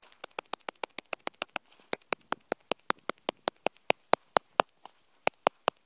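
A gloved hand tapping an avalanche shovel blade laid on top of a snow column: the loading taps of an extended column test. The taps come in a quick series of sharp clicks, about five or six a second, and grow louder about two seconds in.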